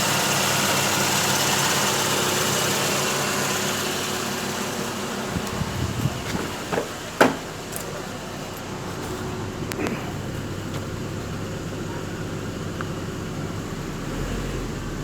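Carburetted Mitsubishi 4G13 four-cylinder engine idling steadily with HHO gas fed into its air cleaner. The sound drops in level about five seconds in. A few sharp clicks follow around six to seven seconds in, the loudest about seven seconds in, before a quieter steady hum.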